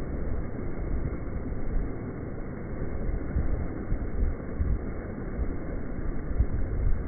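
Ocean surf breaking and washing in, a steady rushing rumble, with wind buffeting the microphone.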